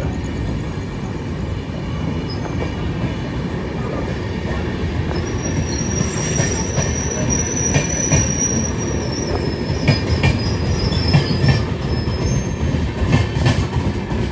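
Train wheels running on the rails with a steady low rumble. From about five seconds in, a thin high squeal of wheels on rail is held for several seconds, and a few sharp clacks over rail joints come near the middle and again near the end.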